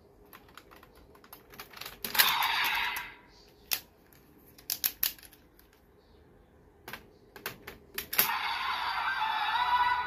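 Hard plastic clicks and clacks of a Kamen Rider Geats toy transformation belt and its raise buckle being handled and snapped into place, with a short louder burst about two seconds in. From about eight seconds the belt's electronic sound effect plays from its small speaker as the buckle activates.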